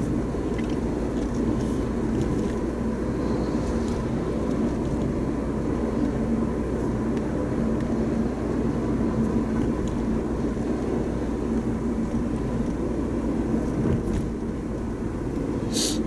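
Steady road and engine noise of a car driving, heard from inside the cabin. A brief high-pitched sound comes right at the end.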